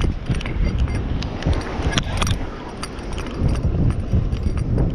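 Wind buffeting the microphone, with irregular metallic clicks and rattles from a conventional fishing reel and rod being carried along.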